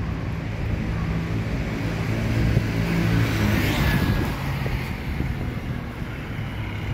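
Street traffic: a car and a motorbike pass close by. There is a low engine hum, and engine and tyre noise swells to a peak about four seconds in, then fades.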